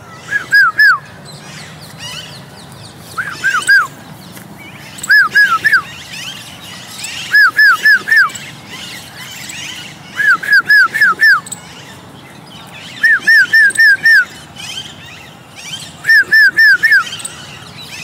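Alexandrine parakeet calling loudly at close range: seven bursts, each of three to five quick, harsh notes that hook downward in pitch, a couple of seconds apart. Behind it, fainter calls of a flock of wild Alexandrine parakeets.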